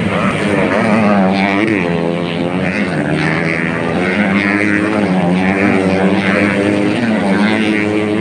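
Motocross dirt bikes' engines revving over a jump, their pitch rising and falling.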